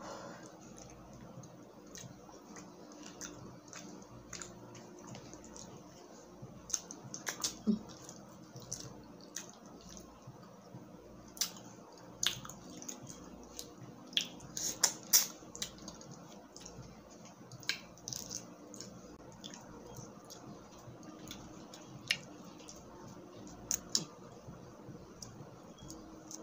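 Shell of a cooked butter garlic shrimp being cracked and peeled apart by hand: irregular sharp clicks and crackles, some clustered in quick runs, with wet chewing between them.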